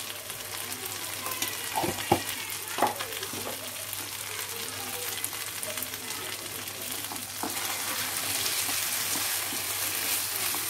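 Potato cubes in poppy-seed paste sizzling in oil in a nonstick wok, with a few light knocks about two seconds in. From about seven seconds in it grows louder as a silicone spatula stirs and scrapes the mixture around the pan.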